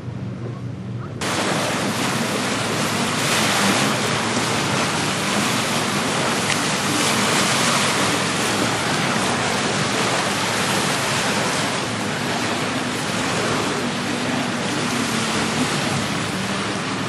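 Steady rush of wind and water noise on open water, starting abruptly about a second in, with a faint low hum beneath it.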